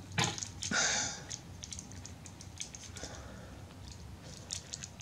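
Small plastic clicks and scrapes from the parts of a Masterpiece MP-17 Prowl transforming robot figure, handled and pressed together while tabs are fitted. A short rustle comes about a second in.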